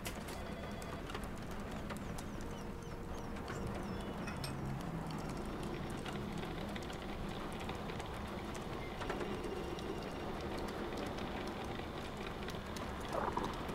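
Recorded office ambience mixed on an ambient-sound website: steady background room noise with a low hum, scattered short clicks and a few brief tones, and one slightly louder short sound near the end.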